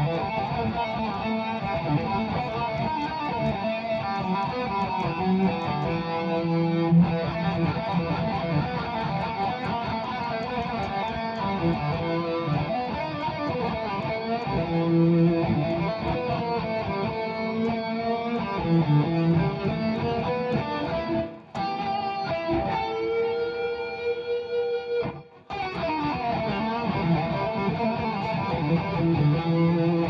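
Electric guitar played continuously, with a long held, ringing note about two-thirds of the way through, set off by two brief breaks in the playing.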